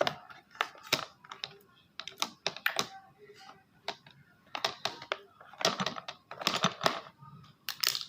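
Sticky homemade glue slime being squeezed and stretched by hand, giving irregular bursts of wet clicks and pops; the slime is not yet fully set.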